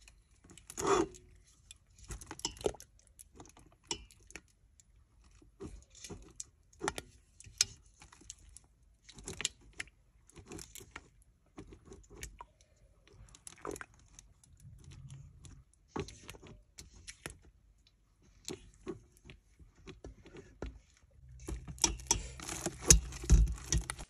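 A silicone spatula scraping and tapping against a stainless steel mixing bowl while partly hardened oils are stirred, in scattered short scrapes and clinks. Near the end comes a louder run of metal knocks and clatter as the steel bowl is set on a stand mixer and the mixer head is brought down over it.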